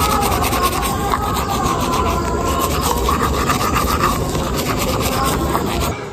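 A manual toothbrush scrubbing teeth close to the microphone: fast, rough back-and-forth rubbing. It cuts off about six seconds in.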